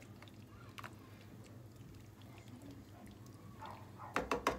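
Spoon stirring a thick chicken pot pie filling in a pan, faint, with a quick run of sharp clicks and knocks about four seconds in.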